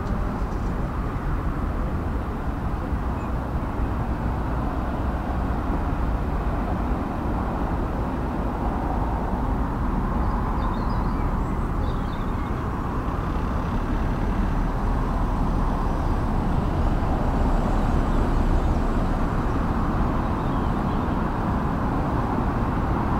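Steady low outdoor rumble, like distant traffic and site background noise, with a few faint high chirps about ten to twelve seconds in.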